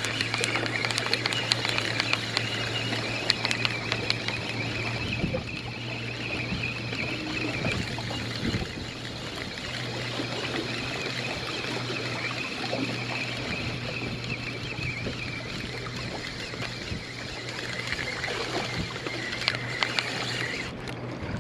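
Motorboat engine running with a steady low hum over water and wind noise, with scattered small clicks.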